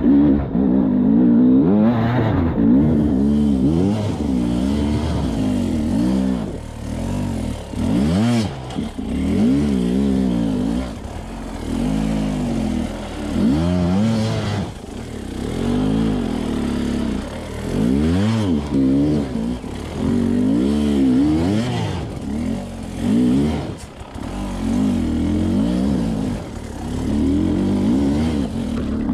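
Sherco enduro dirt bike engine revved up and down again and again, the throttle worked in short bursts as the bike claws up a steep rocky slope, with light clatter from the bike and stones.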